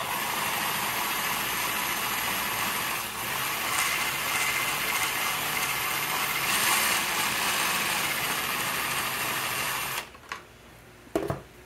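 Black+Decker 20V cordless drill running steadily, turning the Vespa P200E's oil pump through its shaft to test whether it pumps. It stops about ten seconds in, followed by a couple of light clicks.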